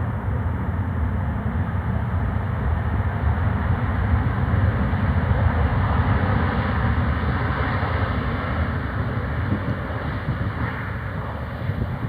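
Jet airliner engines roaring as the plane brakes on the runway after landing; the roar swells to its loudest about halfway through and then eases off.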